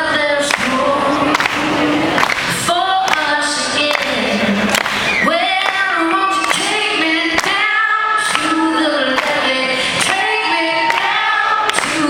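A woman singing a live rock vocal through a PA, with other voices singing along, over sparse accompaniment with sharp percussive beats.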